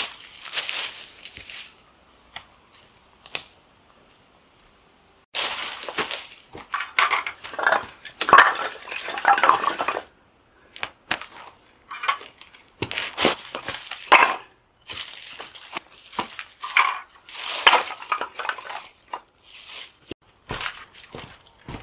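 Dry firewood sticks clattering and knocking as they are set down and stacked on rock, with footsteps crunching through dry leaf litter. Irregular crunches and knocks; after a pause of a few seconds there is a dense stretch of crunching, then scattered clatters.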